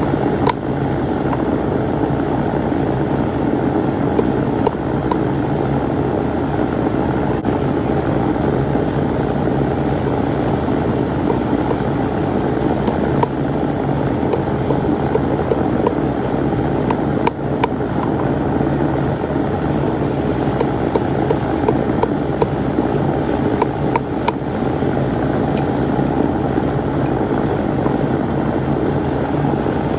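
A blacksmith's forge running with a steady rushing noise and a low hum, as a piece heats between bouts of hammering. A few faint metal clinks come through now and then.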